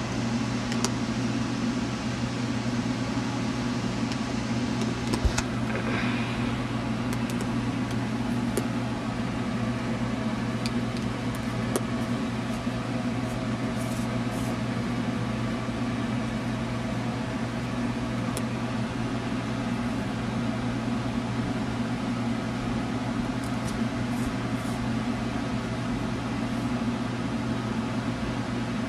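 Steady mechanical hum, with a few light clicks and taps scattered through it and a short scrape or rustle about six seconds in.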